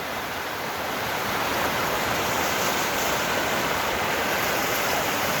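Steady rushing of waterfall water, a continuous even hiss with no breaks.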